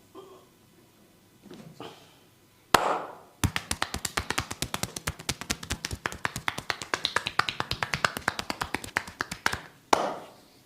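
Massage hands striking a person's back in a fast, even run of sharp taps, about nine a second for some six seconds, set off by a single louder slap before and after.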